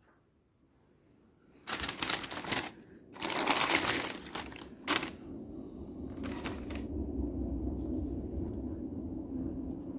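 Shoebox tissue paper rustling and crinkling in several bursts as a pair of sneakers is unwrapped, starting a couple of seconds in. After that a steady low rumble sets in.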